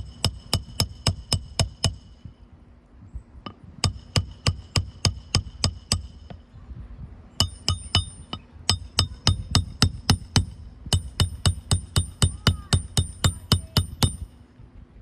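Hammer driving roofing nails into an asphalt shingle by hand: four runs of quick, ringing blows, about four a second, with short pauses between nails.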